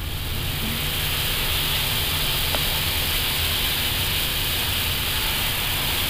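Steady flight-deck noise of an Airbus A320 taxiing: an even hiss of ventilation over a low hum from the idling engines.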